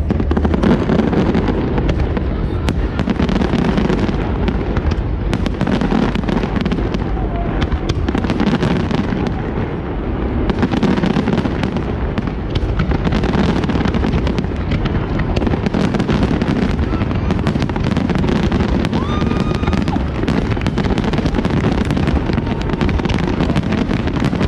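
Large fireworks display: a dense, continuous barrage of bangs and crackles with no pauses.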